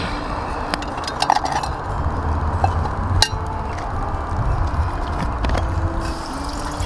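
Metal clinks and knocks of a sooty camping kettle and its lid being handled and set down on split firewood over a fire. There are a handful of sharp clinks, the loudest about three seconds in.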